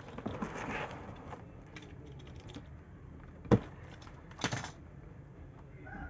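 Cardboard box being opened by hand: faint rustling and scraping of the flaps, one sharp knock about three and a half seconds in, and a short scratchy noise about a second after it.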